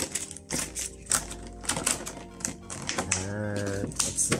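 A quick, irregular string of sharp clicks and taps from a clear plastic packaging tray and paper inserts being handled.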